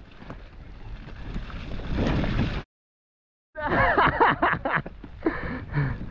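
Wind rush on the camera microphone and tyres rolling over a muddy mountain bike trail, building up, then cutting off abruptly into nearly a second of dead silence. The ride noise then comes back louder, with a wavering high squeal and sharp rattles from the bike.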